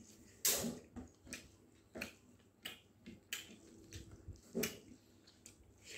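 A person chewing a mouthful of rice and boiled mutton, with wet lip smacks and mouth clicks at irregular intervals, roughly once a second.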